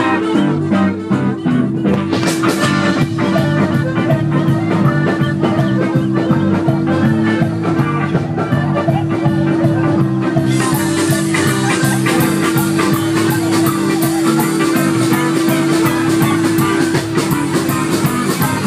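Live band playing loudly: electric guitars, bass, drum kit and accordion, with a long held low note under most of it. About ten seconds in the sound brightens as the cymbals come in harder.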